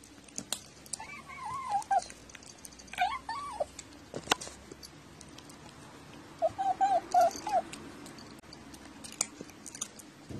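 Domestic cat making short, wavering mews and chirps with its face in the food bowl: one call about a second in, another around three seconds, and a quick string of short chirping mews a little past the middle. Scattered light clicks run through it, with one sharp click about four seconds in.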